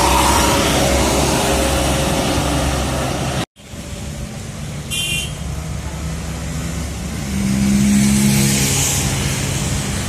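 Road traffic with large diesel vehicles, buses and trucks, passing with engines running. There is a brief high horn toot about five seconds in. The sound cuts out for a moment about a third of the way in.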